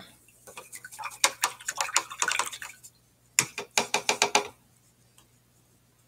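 A paintbrush clinking and rattling against a hard container, in two runs of rapid clicks, the second shorter.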